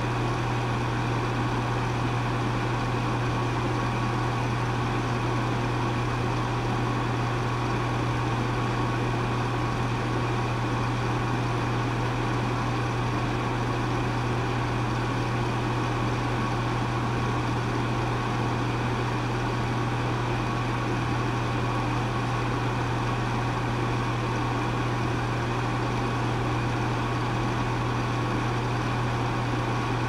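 Air conditioner running steadily: a deep constant hum under an even rush of air, unchanging throughout.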